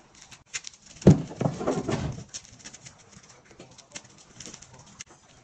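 Hands breaking and crumbling dry, brittle chunks over a glass bowl: a run of small crackles and crunches, with a louder, longer crunch about a second in that lasts about a second.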